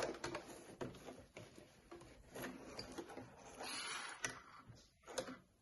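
Fabric rustling and sliding as a cotton apron is pulled and handled at a sewing machine, with a sharp click at the very start and a few fainter clicks later.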